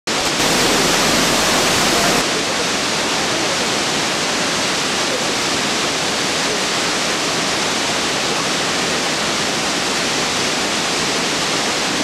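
Shiraito Falls, a waterfall of many thin strands and a main fall plunging into a pool, rushing steadily with a dense, even roar of falling water. It is a little louder for the first two seconds, then settles.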